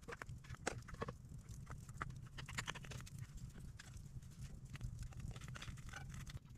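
Irregular light clicks and knocks, several a second, over a steady low rumble.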